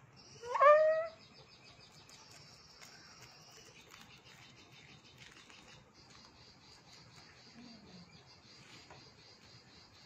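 A single short animal call about half a second in, rising quickly in pitch and then holding. Crickets chirp steadily in a high pulsing trill underneath.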